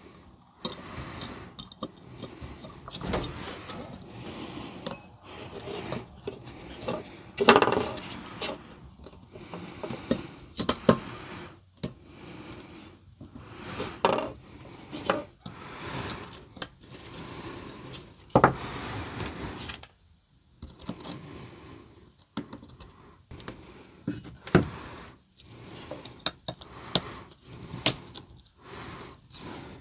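Irregular clicks, taps and clatter of plastic and metal parts being handled as a replacement circuit board is pressed into place on a Milwaukee M18 battery pack, with a few louder knocks.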